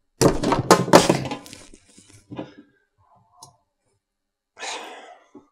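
Hard diced raw vegetables clattering into the tank of a plastic wallpaper steamer: a quick cluster of knocks and clicks about a quarter second in, then a few single quieter knocks and a brief scraping rustle near the end.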